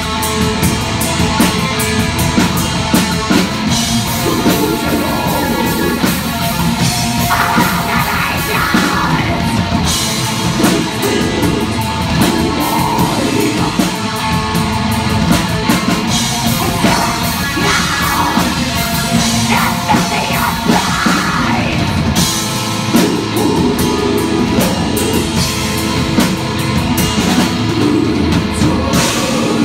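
Live black/death metal band playing loud and fast: distorted electric guitars and bass over a drum kit with rapid drum and cymbal hits. A female vocalist's harsh vocals come and go over the music.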